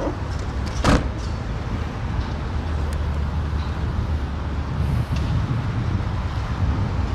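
A car door shutting with a single solid thud about a second in, over a steady low rumble.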